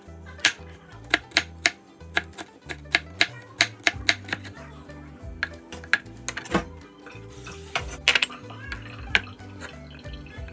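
Knife chopping red bell pepper on a wooden cutting board: sharp knocks, two to three a second at first, thinning out in the second half. Background music plays underneath.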